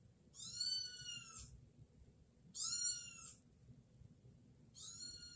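Kitten meowing three times, about two seconds apart: high-pitched calls that rise and fall, each under a second long.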